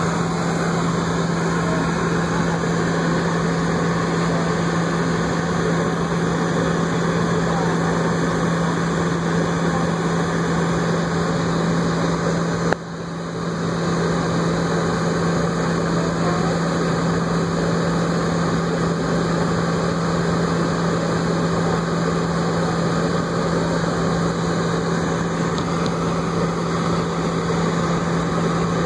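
Airliner's jet engines running at idle thrust while taxiing, heard inside the cabin: a steady rush of noise with a steady low hum beneath it. A short click and a brief drop in level about thirteen seconds in.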